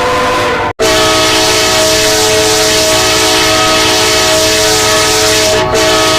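Train air horns being test-sounded: one horn's steady chord of several notes cuts off abruptly under a second in, and a different horn's chord follows, held long and loud, with a brief break near the end.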